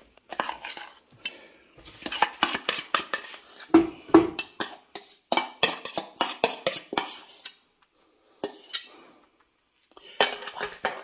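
A spoon scraping and clinking against a stainless steel mixing bowl as thick creamy dressing is scraped out, in quick repeated strokes. The sound stops for a moment, then there are two shorter bursts of scraping near the end.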